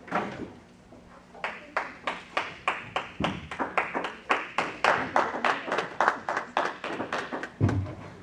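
A small church congregation clapping hands in applause, with separate claps about four a second that fade out near the end, and a single low thump just after.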